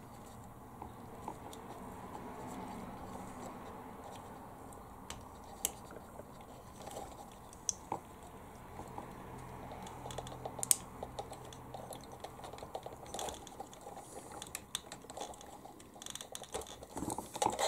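Small clicks and taps of fingers handling plastic connectors and wires while a lead is pushed into an RC model truck's radio receiver. The clicks are scattered and irregular, with a few sharper ones and busier handling near the end.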